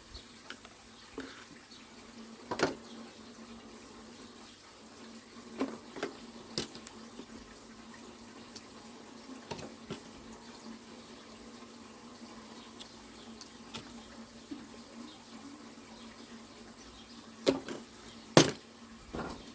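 Scattered light clicks and knocks of small parts being handled while fuel pipes are pushed onto a petrol strimmer's carburettor and primer bulb, with the two loudest knocks near the end, over a faint steady hum.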